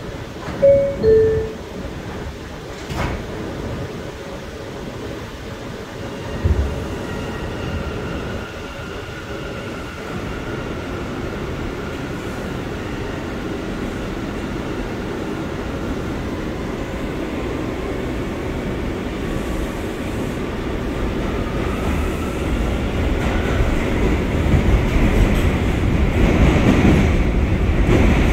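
R179 New York subway car's two-tone door chime sounding about a second in, falling from a higher to a lower note, followed by knocks as the doors shut. The train then pulls out, with a faint traction-motor whine over the rumble of wheels on rail that grows steadily louder as it gathers speed.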